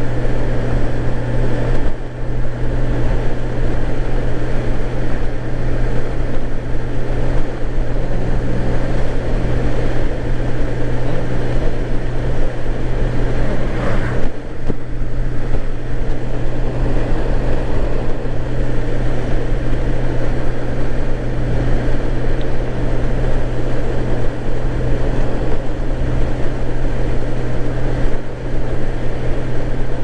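Honda GL1800 Gold Wing motorcycle cruising at a steady speed: the flat-six engine's even low drone mixed with wind and road noise. There is one brief thump about halfway through.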